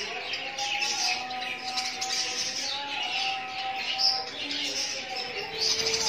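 A colony of budgerigars chattering and chirping, many birds at once in a continuous busy twitter.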